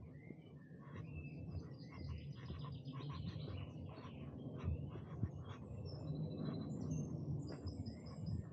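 Several small songbirds singing and chirping at once, a busy overlapping chorus of short, varied whistles and trills. A steady low rumble runs beneath, with two soft knocks about five seconds in.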